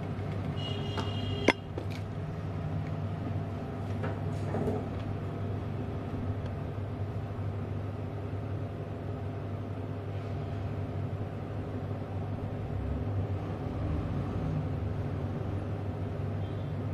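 Steady low mechanical hum with even overtones, and one sharp click about a second and a half in.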